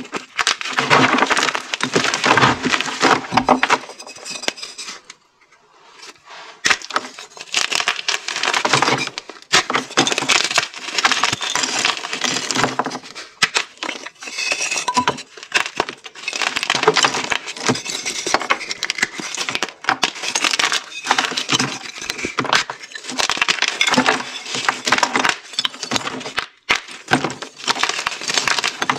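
Hard, dyed gym chalk being crushed and crumbled by hand: dense crunching and cracking as the blocks and pieces break apart, with a short lull about five seconds in.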